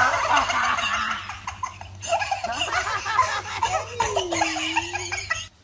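Several voices laughing, overlapping and wavering, cutting off suddenly near the end.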